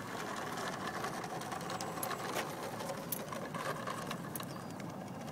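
Tacon 46 brushless electric motor and propeller of a 42-inch Pitts 40 model biplane whirring steadily at low throttle while the plane taxis, with a few sharp clicks around the middle.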